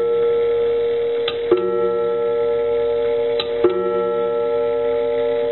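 Coiled wire gong of a 19th-century English bracket clock's triple-strike movement, struck twice about two seconds apart with the same note each time. Each blow follows a short sharp click of the striking mechanism, and the gong's tone rings on between blows.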